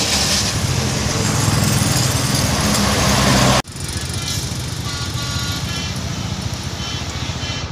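Tour bus engines in a passing convoy: a bus engine running loud and close with road noise, then after an abrupt cut a quieter running engine with faint short high tones repeating over it.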